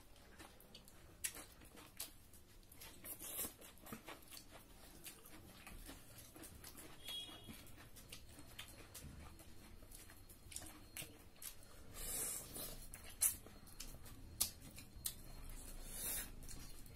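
Close-up eating sounds of people eating duck curry and rice with their hands: chewing and lip-smacking, with many short soft clicks and a few louder wet smacks.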